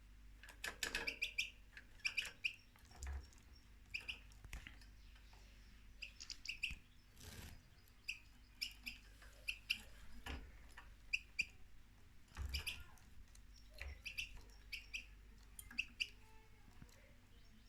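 European goldfinch chirping: short, high calls repeating irregularly, mixed with occasional sharp clicks.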